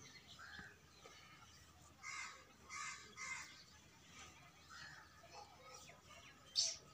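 Birds calling in short, harsh notes: a few about two to three and a half seconds in, fainter ones between, and a louder call near the end.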